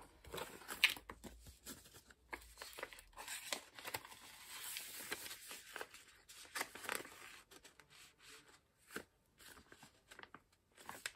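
Clear plastic punched pocket crinkling and rustling as a paper sticker sheet is slid into it and handled, with scattered sharp taps and clicks.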